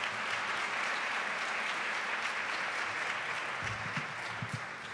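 Audience applause from a seated banquet crowd welcoming a speaker to the podium, steady at first and fading toward the end, with a few low knocks near the end.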